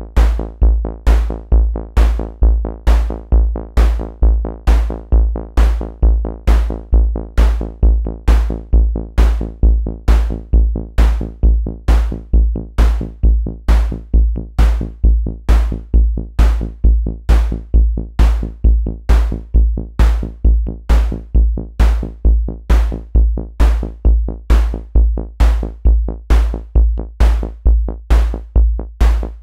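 Synthesized techno loop from the ArtMatic Designer CTX "Techno Machine Noise" sound-synth preset. A deep bass thump pulses about twice a second, with sharp clicks on the beats over a steady buzzing drone.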